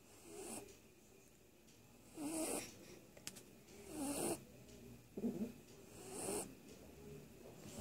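Quiet snoring: short, rough breaths repeating about every one to two seconds, some with a light rattle.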